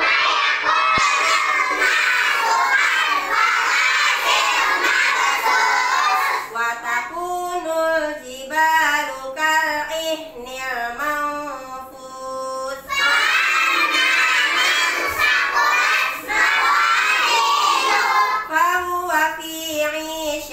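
A class of young children singing together in unison, with a single woman's voice singing lines in between, once in the middle and again near the end.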